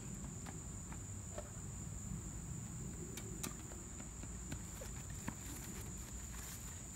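Steady high-pitched insect chorus, like crickets, with a low rumble and a few faint scattered taps underneath.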